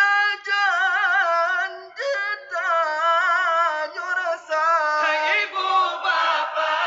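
A man singing a melismatic Ramadan sahur wake-up chant solo into a microphone, stretching long, high notes with a heavy vibrato and sliding between pitches. In the last second or so other voices come in and the sound thickens toward a group chant.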